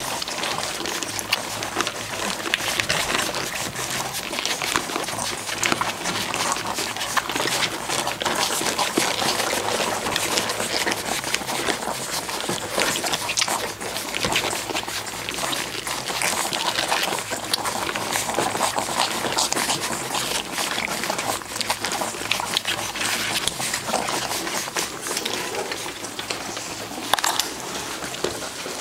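Four-week-old golden retriever puppies nursing: a dense, steady run of wet smacking and clicking as they suckle.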